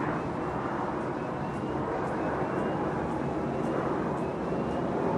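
Avro RJ85 four-engine turbofan jet passing overhead, a steady jet rumble with a faint high whine from its engines.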